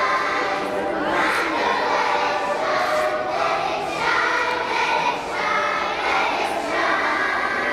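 A large group of kindergarten children singing together as a choir, many young voices in phrases of held notes.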